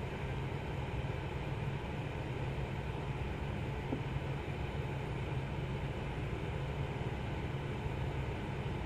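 Steady low hum and hiss of background noise, with one small click about four seconds in.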